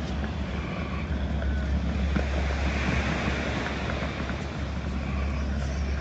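Steady low rumble of wind on the microphone over a broad wash of outdoor background noise.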